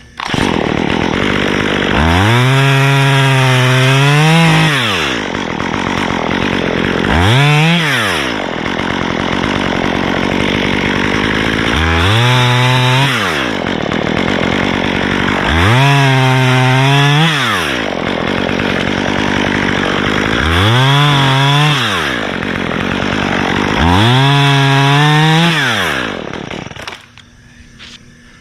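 Two-stroke top-handle chainsaw cutting a round off a dead white pine trunk, revved to full throttle about six times with noisier stretches between, then dropping off sharply near the end.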